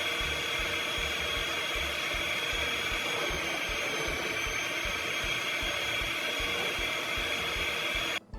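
Steady whirring and rushing of an electric motor blowing air, like a hair dryer or vacuum cleaner, cutting off suddenly near the end.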